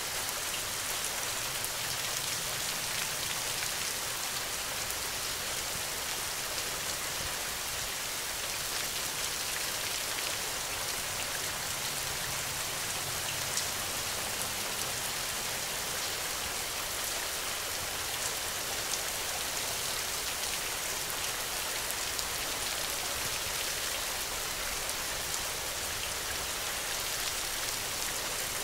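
Steady rain falling: a constant hiss with many small drop taps, the same all the way through.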